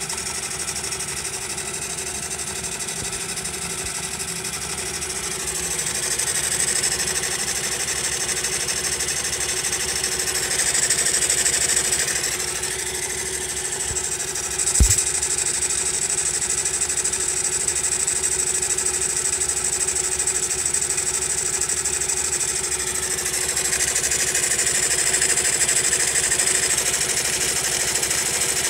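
Honda Monkey's single-cylinder four-stroke engine running at idle and picking up revs a few times, with one sharp click about halfway through. It makes an abnormal engine noise that the owner finds is still there after adjusting the tappets.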